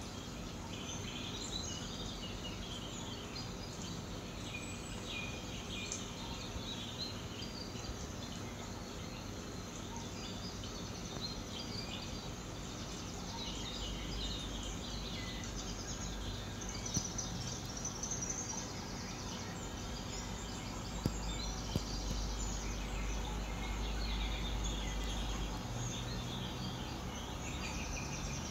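A dense chorus of chirping birds and insects, many short calls overlapping, over a steady low hum, with a few faint clicks about two-thirds of the way through.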